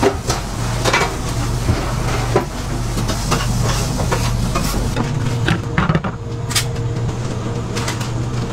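Food-prep handling: light knocks and clatters of burger buns being stacked and laid on a plastic cutting board, over a steady low hum.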